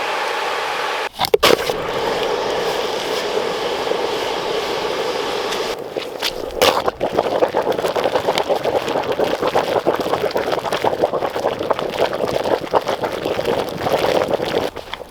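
Water boiling hard in a wooden bucket heated with hot rocks: steady bubbling and sizzling, with brief breaks about a second in and again about six seconds in.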